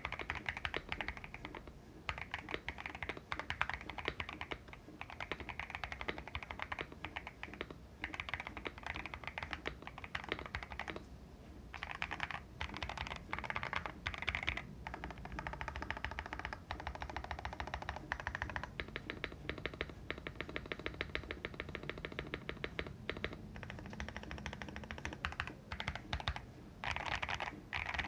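Typing on a Feker IK75 mechanical keyboard with factory-lubed Akko CS Silver linear switches on a polycarbonate plate, tape-modded, with lubed stabilizers and MSA keycaps. Bursts of keystrokes with short pauses between them, and a fast, even run of strokes about two-thirds of the way in.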